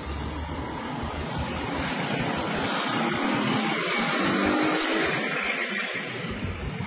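Road traffic noise of motorcycles and cars. A pack of motorcycles passes close, and their engines and tyres grow loudest about midway before easing off.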